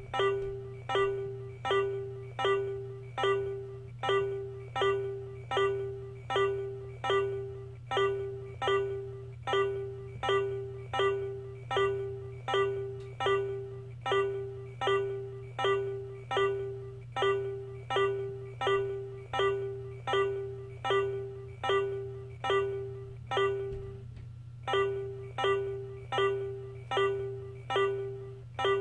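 Hasbro Room Tech Beingz toy alarm clock sounding its alarm: one chime-like note repeated about every 0.7 s, each note fading quickly. The repeats pause briefly near the end, and a steady low hum runs underneath.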